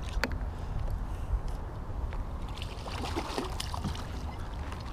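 Water sloshing and splashing at the side of a kayak as a just-caught largemouth bass is handled, with scattered small knocks and a steady low rumble underneath. The splashing is busiest about three seconds in.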